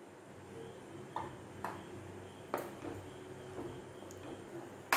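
A pan of milk with fried chhena pieces simmering quietly, with a few soft clicks and taps from the pan and a spatula stirring in it near the end.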